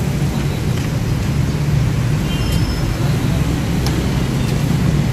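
Steady low rumble of street traffic noise, with a few faint clicks and short metallic clinks.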